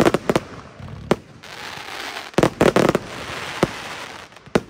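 Firework battery firing a rapid run of sharp bangs as shells launch and burst. The bangs come in clusters, with a dense group a little past halfway, and a crackling hiss of glitter stars fills the gaps between them.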